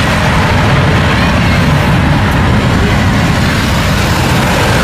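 Twin-engine widebody jet airliner running its engines on the runway: a loud, steady noise, strongest low down.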